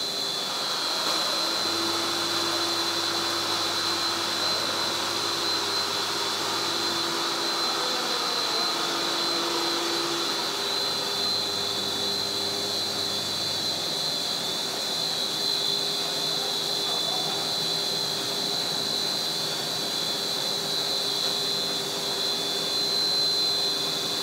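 HDPE blown-film extrusion machine running: a steady whir with a constant high-pitched whine over it.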